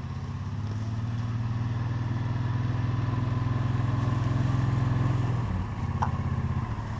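A motor vehicle engine running steadily, slowly getting louder, then changing note and easing off about five and a half seconds in.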